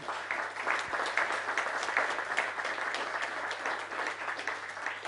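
Audience applauding: many hands clapping together, building up in the first second and then holding steady.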